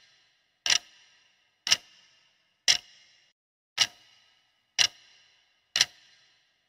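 Countdown-timer ticking sound effect: a sharp clock tick once every second, six ticks in all.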